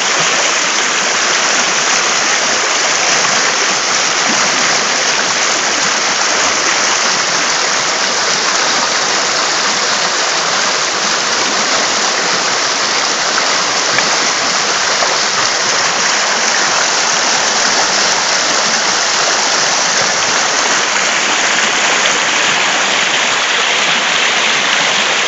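Shallow river rushing and splashing over stones close to the microphone: a loud, steady rush of water.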